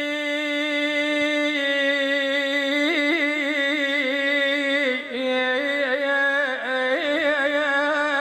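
A male reciter singing an Iraqi funeral lament, drawing out one long held note that breaks into wavering melismatic turns. There is a brief break about five seconds in.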